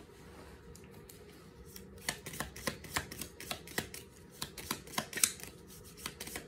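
Hands working a small deck of reading cards: light, irregular clicks and ticks, a few a second, starting about two seconds in.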